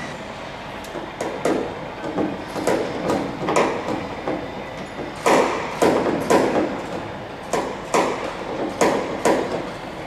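Irregular knocks, about fifteen in ten seconds, on a Lancaster bomber's restored wing tip as it is worked into place on the wing.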